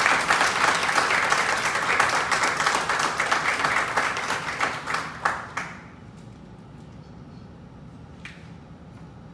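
Audience applauding, a dense patter of many hands that stops about six seconds in. A single clap or two follows over quiet room tone.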